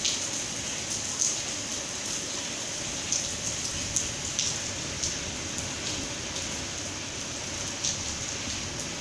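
Steady rain falling on a wet tiled floor: a continuous hiss with a few sharper drip splashes now and then.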